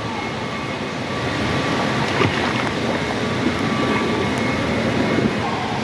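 Steady din of an indoor water park, mostly rushing and splashing water, with a faint steady hum and a single click about two seconds in.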